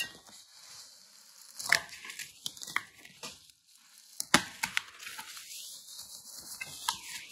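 Bubble wrap and corrugated cardboard packing being pulled off a bicycle frame by hand: crinkling, rustling and tearing, with scattered sharp crackles, the sharpest about four seconds in.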